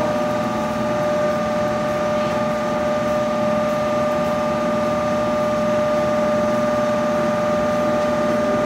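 Steady machine hum with a fixed whine of several unchanging tones, holding level throughout.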